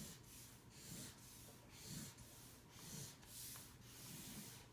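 Faint scratching of a felt-tip marker drawing short lines on chart paper, a stroke about every half second.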